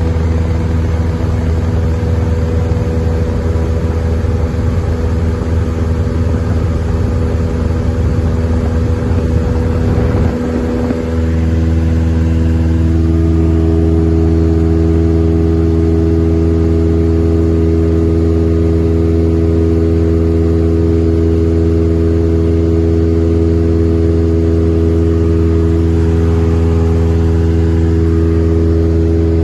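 Cessna 172M's four-cylinder Lycoming engine and propeller running with a steady drone, heard from inside the cabin. About ten seconds in the tone changes briefly, then settles into a steady, even drone again.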